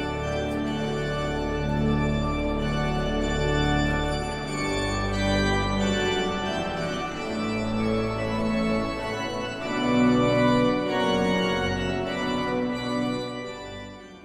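Church organ playing a slow run of sustained full chords over deep bass notes. The chords change every second or so, and the sound dies away near the end.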